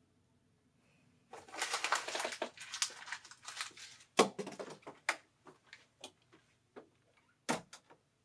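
Crinkling and rustling of something handled in the hands, then a sharp knock about four seconds in and a few scattered small clicks and taps.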